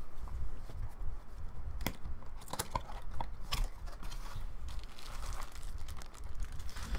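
Cardboard box and plastic packaging being opened and handled: irregular crinkling, rustling and scattered sharp clicks.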